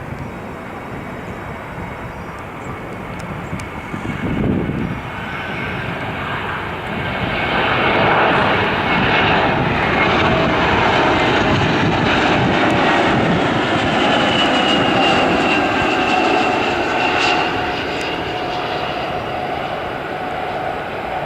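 Airbus A321 airliner landing and passing by, its jet engines' roar swelling to a peak through the middle and then easing off. Engine whines in the roar drop slowly in pitch as it goes past.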